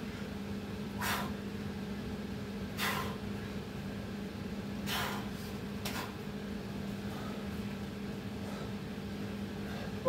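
A man's sharp, forceful exhales from the effort of doing burpees, four short puffs at uneven intervals, over a steady low hum.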